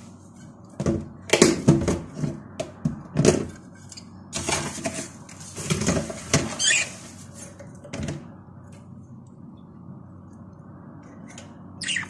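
Plastic feeder cups and a water dispenser rattling and knocking against the wire bars of a birdcage as they are handled, a string of sharp clatters that stops about eight seconds in.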